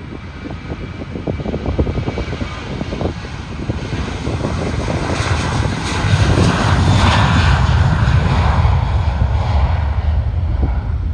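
Boeing 737 jet engines at takeoff power during the takeoff roll: a low rumble with a rushing hiss that grows louder about halfway through as the airliner passes.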